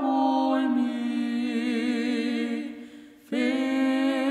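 A man and a woman singing a slow hymn together, holding long notes with vibrato. The sound dips briefly about three seconds in before the next phrase begins.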